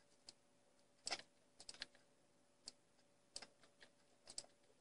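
Faint, irregular clicking of a computer keyboard and mouse in use: about a dozen clicks, some single and some in quick pairs or triples, over a faint steady hum.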